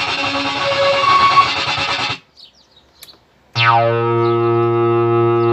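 Novation MiniNova synthesizer playing test sounds: a dense, distorted buzzing patch that stops about two seconds in. After a short gap, a new held low note starts, bright at the attack and then quickly mellowing as its filter closes.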